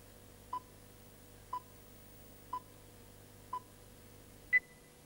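Film-leader countdown beeps: a short beep once a second, four times, then a louder, higher-pitched final beep about four and a half seconds in, over a faint steady hum.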